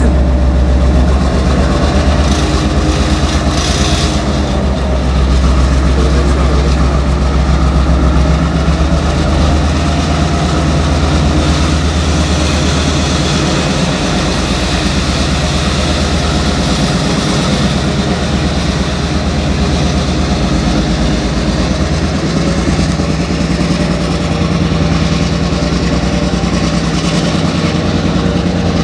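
Diesel locomotive engine running steadily at low power as it slowly hauls a passenger train forward, with a deep, continuous engine sound throughout.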